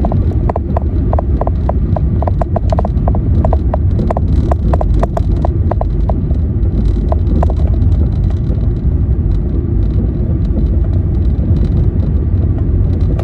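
Car driving on the road, a steady low rumble of engine and road noise. A quick run of sharp ticks, about four a second, sounds over it and dies away a little past the middle.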